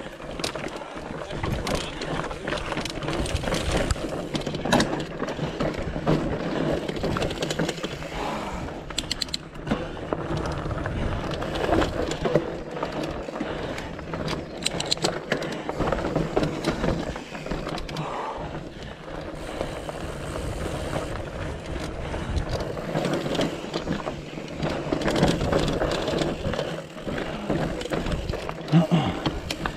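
Mountain bike rattling and clattering over a rocky trail: tyres rolling and knocking over rocks while the bike's frame and chain jangle, with many sharp clicks and knocks.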